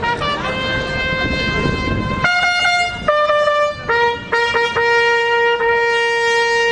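A brass horn plays a slow call in long held notes. It steps up to a higher note and back down, sounds a few short notes, and ends on a long held low note.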